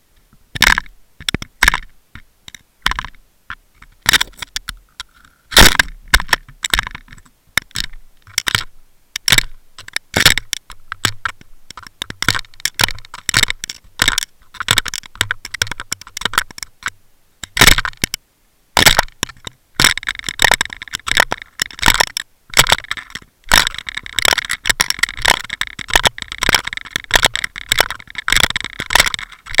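Underwater clicking and crackling: sharp, irregular cracks and scrapes in quick clusters, becoming denser and nearly continuous about two-thirds of the way through.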